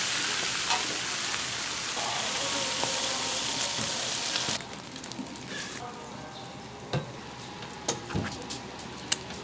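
Food frying on a hot surface or in oil, a loud steady sizzle that cuts off suddenly about four and a half seconds in, followed by quieter scattered knocks and clicks of utensils.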